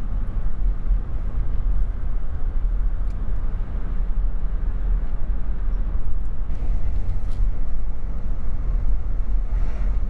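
Steady low road and engine rumble of a car cruising on a highway, heard from inside the cabin.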